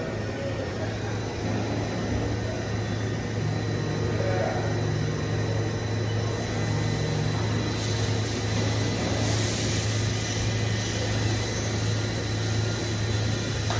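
Steady low machine hum with a constant noisy wash from running machine-shop equipment.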